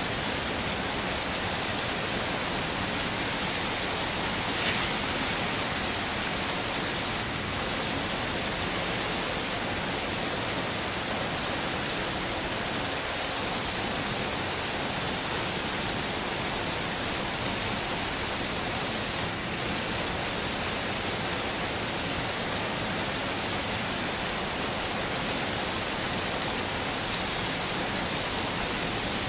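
Heavy rain falling steadily, a dense even hiss. It briefly dips twice, as the top end drops out for a moment.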